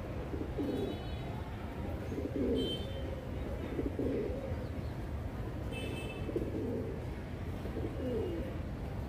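A flock of pigeons cooing, low coos coming every second or two, with a few short high chirps mixed in.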